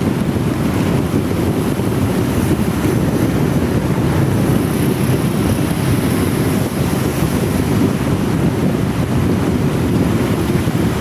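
Wind buffeting the microphone of a moving motorcycle in heavy rain: a steady, dense rumbling rush with a hiss above it.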